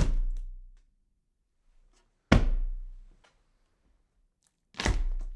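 Three heavy thuds, evenly spaced about two and a half seconds apart, each with a deep low boom that rings out for under a second, in the manner of slow pounding on a door.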